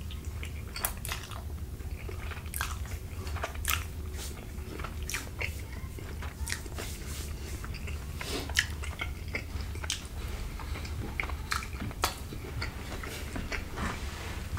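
Close-miked chewing of a mouthful of chicken fettuccine alfredo, with many short sharp mouth clicks and smacks at irregular intervals. A steady low hum runs underneath.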